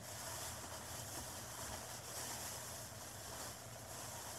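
Faint, steady hiss with a low hum underneath: room tone and recording noise, with no distinct sound.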